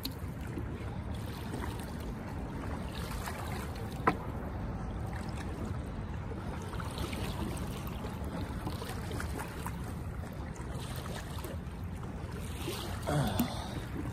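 Legs in hip waders pushing through a flowing creek: a steady rush and slosh of water, with a sharp click about four seconds in and a short louder burst near the end.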